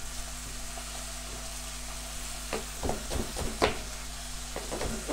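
Lamb's fry sizzling steadily in a hot frying pan, over a steady low hum. About halfway through, a few knife strikes on a wooden chopping board as an onion is diced.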